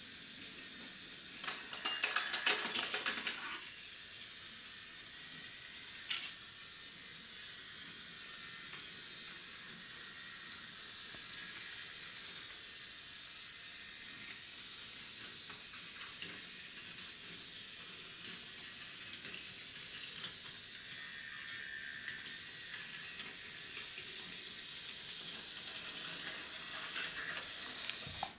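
A small battery-powered toy locomotive running on wooden train track: a steady faint hiss with light clicks. A louder clattering rattle lasts about two seconds shortly after the start.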